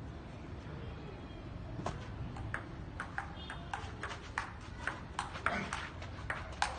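Table tennis ball clicking in a fast rally, struck by the paddles and bouncing on the table, about three hits a second, starting about two seconds in.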